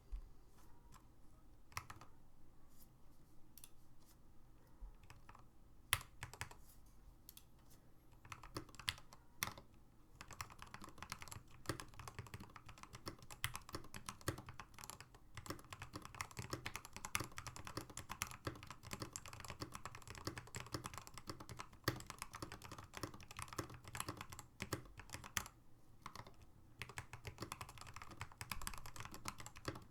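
Typing on a modded Cosmic Byte Firefly CB-GK-34 mechanical keyboard with Gateron Milky Yellow Pro linear switches and dye-sub PBT keycaps. Scattered keystrokes for the first several seconds, then steady fast typing from about ten seconds in, with a short pause near the end.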